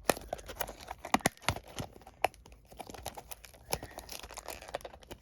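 Hands picking at the plastic shrink-wrap and cardboard of a sealed trading-card booster bundle box, with crinkling and a string of irregular small clicks and taps as the wrapping resists opening.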